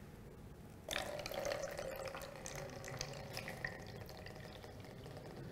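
Water poured from a jug into a plastic funnel sealed onto a plastic bottle, starting about a second in and getting quieter after the first two seconds. The funnel fills but the water does not drain into the bottle, because the sealed bottle is full of air.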